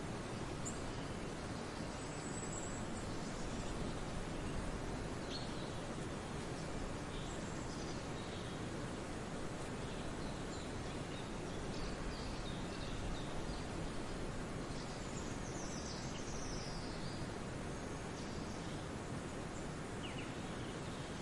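Forest ambience: a steady rush of background noise, with faint, scattered high bird chirps and whistles over it, including a few falling glides a little past the middle.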